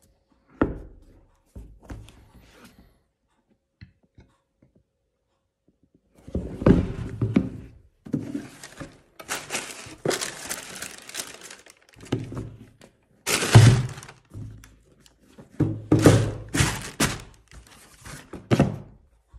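Handling noise of Air Jordan 4 sneakers and their cardboard shoebox: a sharp thunk about half a second in and a few light knocks. From about six seconds, tissue paper rustles and crinkles in repeated bursts, mixed with thunks as the shoes are set into the box.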